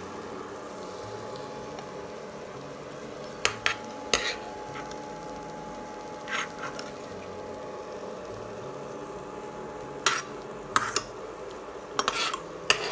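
Steel spoon scraping and clinking against a steel frying pan and a plate as fried onions are scooped out. It comes as short knocks and scrapes in a few clusters, about 3.5 s in, at 6 s, and a busier run near the end, over a steady hum.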